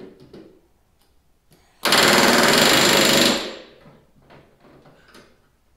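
Pneumatic rivet gun hammering a solid aluminium rivet into the aluminium skin of an RV-10 vertical stabilizer, against a tungsten bucking bar held behind it. One burst of rapid blows about a second and a half long, starting about two seconds in.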